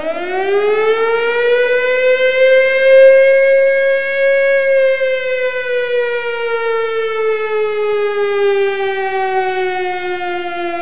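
A siren winding up: a loud, pitched wail that rises over about two seconds, holds, then slowly sinks in pitch.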